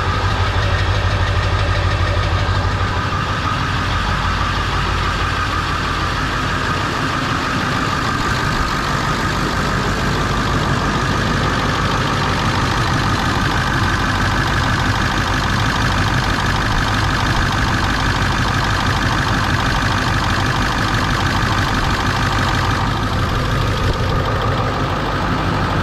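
Ford 7.3 Powerstroke turbo-diesel V8 idling steadily with its diesel clatter, running on freshly replaced injectors. A steady whine sits above the engine note.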